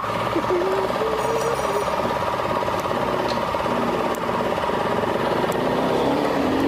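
Steady mechanical running noise with a fine, rapid pulsing, like an engine or machine running at a constant speed.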